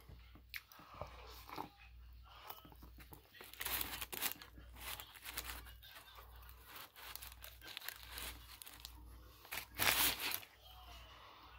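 Close-up eating sounds: chewing a breakfast sandwich on an English muffin, mixed with the crinkle and tear of its paper wrapper, in irregular crackly bursts. The loudest burst comes a couple of seconds before the end.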